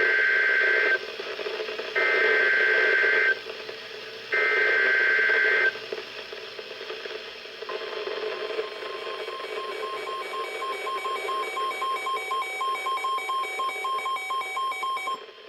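Emergency Alert System SAME header broadcast over NOAA Weather Radio: three digital data bursts, each about a second long with about a second between them, that encode the severe thunderstorm warning that follows. About two seconds later the 1050 Hz weather-radio warning alarm tone starts with a pulsing pattern of alert beeps from the receiving weather radios, and it cuts off suddenly near the end.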